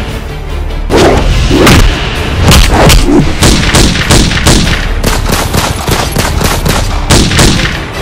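Repeated bursts of gunfire: sharp shots in quick runs, with a few heavier booming strikes, over a steady deep rumble.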